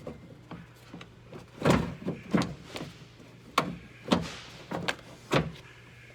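A run of about six sharp knocks and clunks, irregularly spaced, as the car door's inner panel and parts are handled and shifted by hand.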